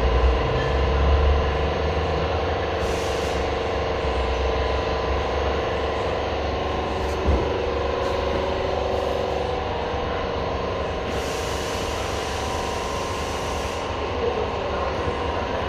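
Car accessories shop ambience: a steady machine hum with several held tones, one short knock about seven seconds in, and a high hiss that comes in for a few seconds after the middle.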